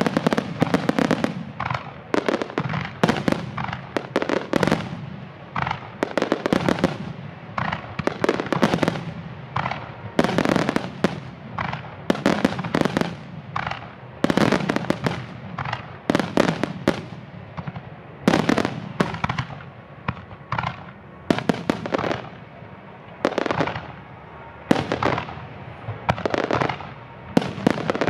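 Japanese starmine fireworks finale: a rapid-fire barrage of aerial shells bursting in quick succession, with booms often several a second and louder clusters every second or two.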